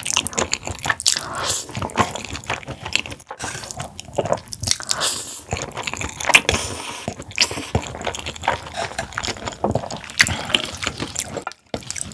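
Close-miked slurping and chewing of thin wheat noodles in spicy sauce, a dense run of wet smacks and clicks. There is a short pause near the end.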